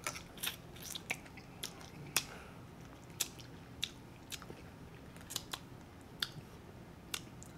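Close-miked mouth sounds of stripping the meat off a fried chicken wing bone and chewing it: scattered sharp, wet clicks and smacks of lips and teeth on the bone, a dozen or more spread irregularly.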